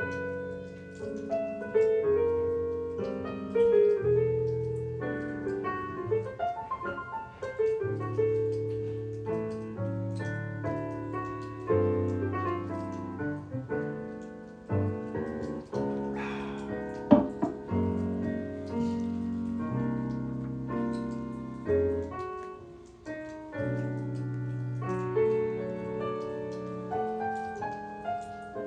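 Piano background music, slow notes and chords. There is one sharp tap a little past halfway.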